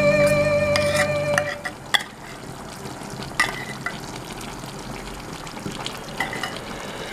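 A metal spoon scrapes liver spread out of a tin can into a pot of simmering beef stew. A few sharp clinks of metal on metal sound over the steady sizzle and bubble of the stew.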